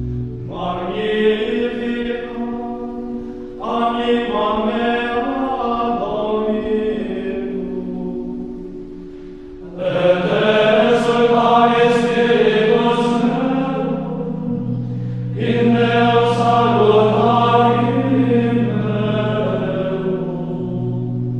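Background music: Gregorian chant sung by a choir of monks, in phrases of a few seconds each over a held low note. The singing comes in louder about ten seconds in.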